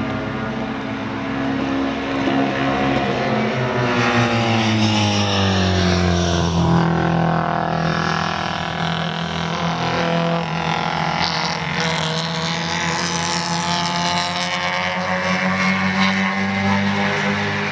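Classic Mini race cars' BMC A-series four-cylinder engines running hard as the cars circulate. The engine note falls in pitch a few seconds in as cars pass and lift for the bends, stays low for a while, then climbs again near the end.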